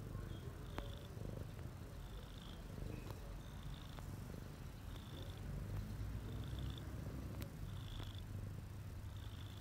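Domestic cat purring, a steady low rumble that swells and eases in an even rhythm.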